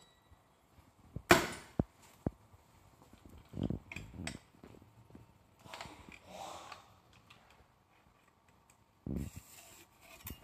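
Handling of a manual metal nameplate marking machine: a loud sharp click a little over a second in, then scattered clicks, duller knocks and short scraping noises as its character wheel and metal parts are worked.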